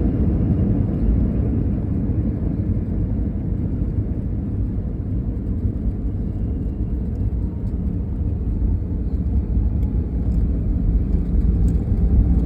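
Steady low rumble inside a jet airliner's cabin during the landing, growing a little louder near the end.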